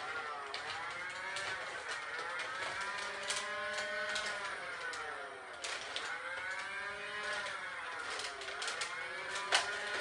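Motorized flywheels of a Nerf Regulator blaster revving, their whine rising and falling in slow waves as the rev trigger is pressed and let go, with a few sharp clicks of darts being fired, the loudest near the end.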